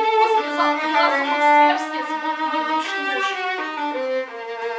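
Violin playing a slow phrase of held notes, often two sounding together.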